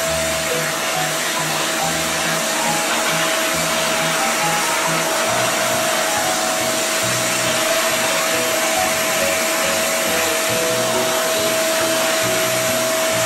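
Canister vacuum cleaner running steadily: an even rush of suction with a steady high motor whine, its hose nozzle being run over a dog's fur.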